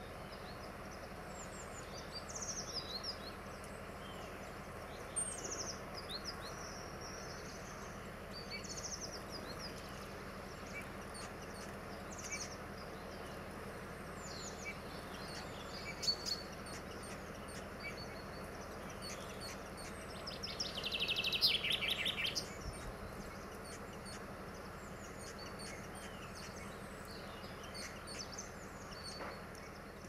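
Small songbirds calling: short high chirps every few seconds, with a louder rapid trill about two-thirds of the way through, over a steady background hiss.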